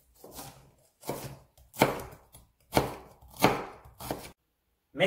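Chef's knife slicing an onion into strips on a wooden cutting board: about six separate cuts, each a short knock of the blade on the board.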